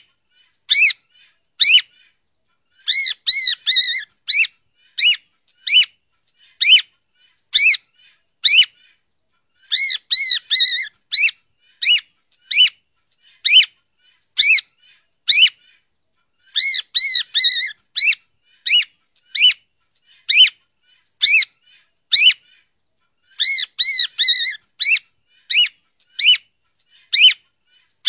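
Cockatiel whistling: short, clear arched whistle notes about one a second, broken every six or seven seconds by a quick warbling run, the sequence repeating in a loop.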